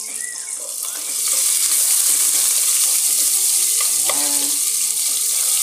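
Garlic, onion and ginger sizzling in hot oil in a pot as they are sautéed. The sizzle grows louder about a second in, then holds steady.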